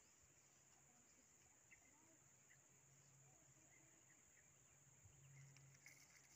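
Near silence: faint rural outdoor ambience with a steady high-pitched insect drone and a few faint chirps.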